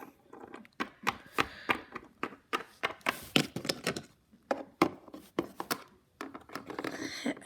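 A plastic toy figurine tapped repeatedly on a hard surface to make it walk: a run of short, irregular clicks and taps, a few per second.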